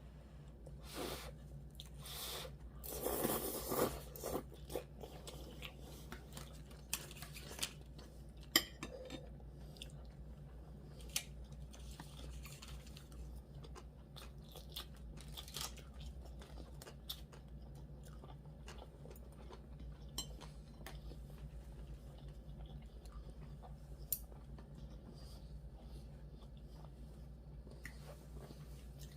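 Mouth sounds of someone eating gimbap and cup ramen: chewing with scattered crunches and short clicks, a louder burst about three seconds in, over a steady low hum.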